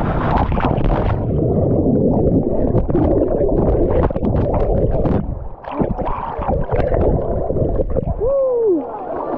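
Camera ride down a waterpark slide: rushing water and a body sliding through the flume make a loud churning rumble with frequent knocks against the slide. A short sound falling in pitch comes near the end.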